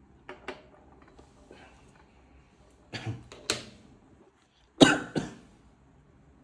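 A man coughing in short pairs of coughs, a faint pair near the start, then two louder pairs about three and five seconds in, the last the loudest. The coughing is a reaction to the sharp-smelling fumes of the melted low-temperature welding rod.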